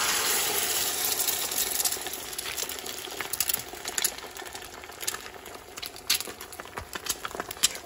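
Beaten eggs sizzling as they pour into a hot stainless-steel skillet, loudest as they first hit the pan, then easing into a steadier sizzle with scattered crackles and pops.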